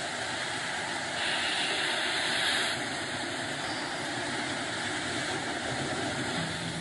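Electric arc welding on steel girders: a steady crackling hiss, a little louder for a second or two about a second in.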